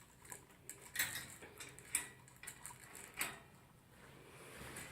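Toy poodle eating dry food from a bowl: scattered crunches and clicks of kibble against the bowl, three louder ones about a second apart.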